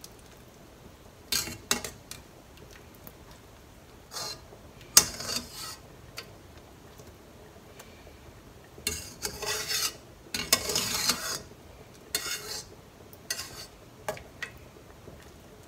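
Scattered clinks and scrapes of a metal skimmer ladle against a hammered aluminium saucepan and a ceramic bowl as boiled turnip and daikon slices are scooped out of the water.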